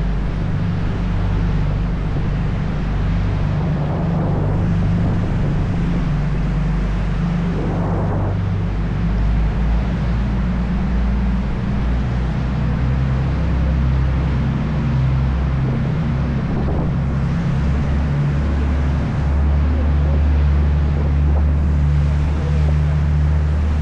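Sightseeing boat's engine running steadily, a loud low drone heard on board over the rush of water and wind, swelling a little near the end.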